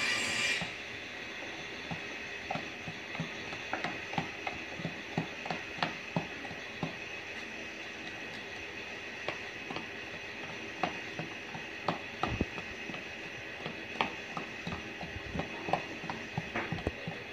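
Flat mixing stick stirring thick wall putty in a metal paint tin, giving irregular clicks and knocks as it scrapes and taps against the tin's sides.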